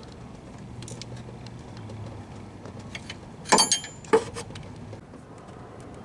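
Steel wrenches clinking against an A/C line's fitting nut as it is tightened: a few sharp metallic clinks, the loudest about three and a half seconds in with a brief ring.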